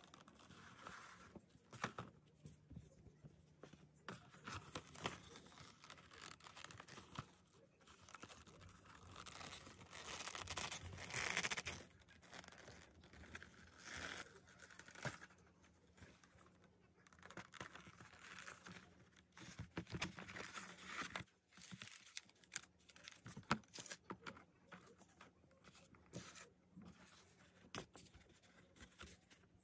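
Faint rustling and crinkling of a cotton dust bag and stiff oiled leather goods being handled, with scattered light taps and clicks. The loudest rustle comes about ten to twelve seconds in.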